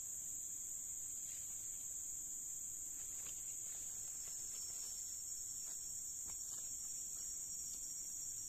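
Insect chorus, a steady shrill drone with no break, with a second thin high tone joining about halfway through. A few faint clicks sound over it.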